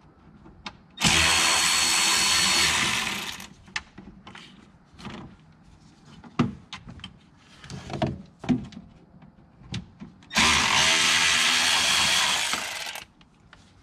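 Cordless power driver running in two bursts of about two to three seconds, backing out the Torx screws that hold the factory intercooler, with clinks and knocks of the tool and parts between the bursts.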